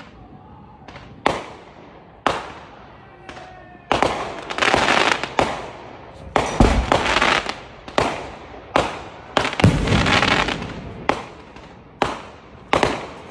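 Aerial fireworks bursting overhead: a run of sharp bangs roughly a second apart, each trailing off. They are sparse at first, then louder and closer together from about four seconds in.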